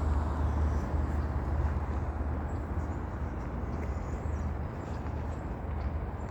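A passing road vehicle's low rumble, slowly fading away as it moves off.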